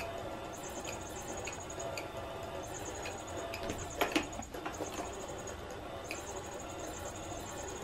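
Catty Whack electronic cat toy running: a steady hum under short repeating electronic squeaks and chirps. About four seconds in, a brief clatter as a paw strikes the toy's opening.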